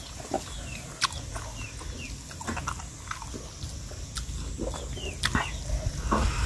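Close-up chewing and mouth smacks of a person eating rice and pork by hand, with scattered sharp clicks. A few short, high, falling chirps come through behind it.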